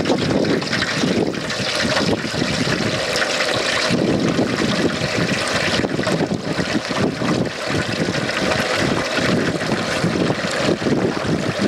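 Hot frying oil at about 350°F bubbling and popping with a dense, steady crackle as a whole turkey is lowered into the pot: the water and moisture in the turkey boiling off in the oil.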